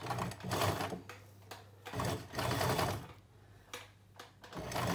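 Sewing machine stitching in short runs with two pauses between them, sewing a long basting stitch along a dress strap's seam.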